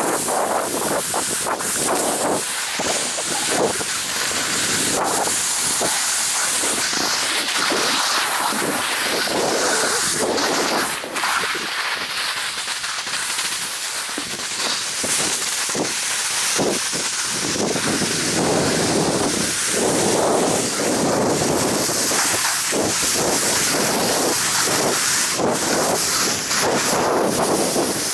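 Skis hissing as they slide and turn over snow, with wind rushing on the microphone.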